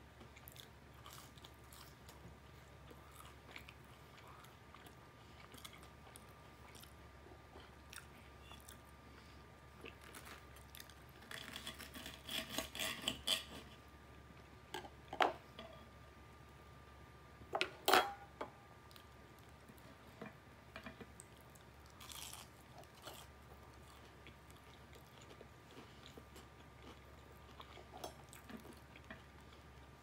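Close-miked chewing of extra-crispy fried chicken and fries, mostly quiet mouth sounds, with a run of loud crunchy bites about twelve seconds in and a few sharp single crunches or clicks later on.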